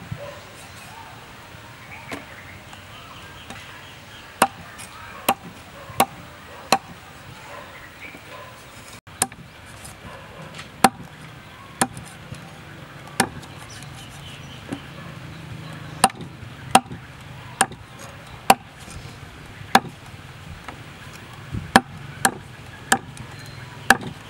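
Meat cleaver chopping the claw tips off raw chicken feet on a thick wooden chopping block: about twenty sharp single chops, roughly one a second, some in quick runs of three or four.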